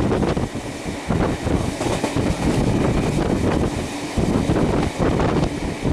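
Running noise of a moving steam train heard from on board, with heavy wind buffeting the microphone.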